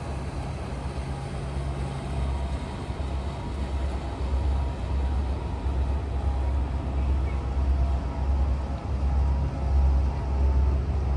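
Low, steady rumble of a tugboat's diesel engines working a barge downriver, slowly growing louder as the tug comes closer.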